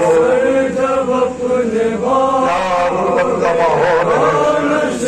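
A man chanting a noha, a Shia mourning lament, in a sustained wailing voice through a microphone.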